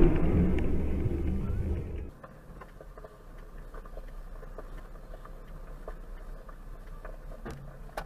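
Car driving noise: a loud low rumble of tyres and engine for about two seconds that cuts off suddenly, then a much quieter steady in-car hum of a car moving in traffic, with faint scattered clicks.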